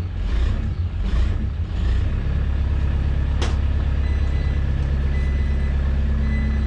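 Skid steer loader's engine running, uneven at first and then steady from about two seconds in, with one sharp click a little past the middle.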